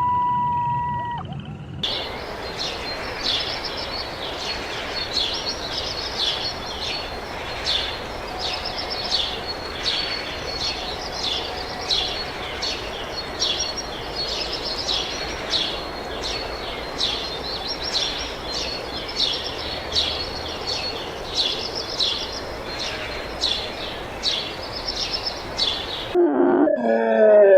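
A small animal's short, high chirps repeating about twice a second over a steady background hiss. It starts with a brief steady tone and ends with a different wavering call near the end.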